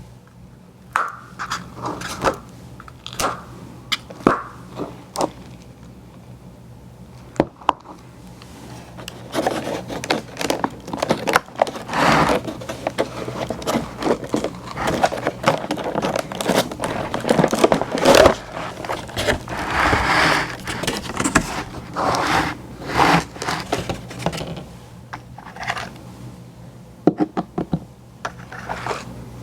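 Close-miked ASMR eating and handling sounds of ice cream treats: a few sharp clicks and taps at first, then long stretches of crackling, scraping and munching from about ten seconds in. A faint steady low hum lies underneath.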